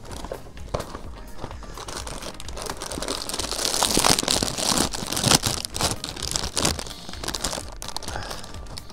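Plastic cracker bag crinkling and tearing as a box of Cheez-It crackers is opened, a rapid run of crackles loudest about halfway through.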